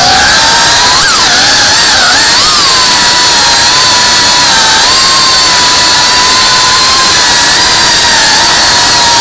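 FPV quadcopter's brushless motors and propellers whining loudly, heard from the onboard camera, with a rushing noise of prop wash. The whine's pitch dips and recovers with throttle changes about a second in and again around two seconds, then holds steady.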